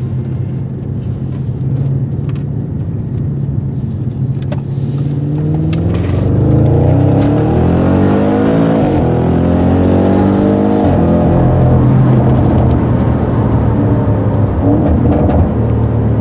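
Audi RS6 Avant C7's twin-turbo V8 running through a Milltek exhaust: a steady drone at first, then about six seconds in it accelerates with the pitch climbing, dropping sharply twice, before settling back into a steady drone.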